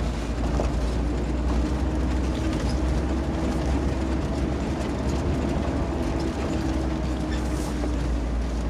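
Kia 4x4 driving over a rocky gravel track, heard from inside the cabin: a steady low rumble with a faint engine hum and the crunch and rattle of tyres on loose stones.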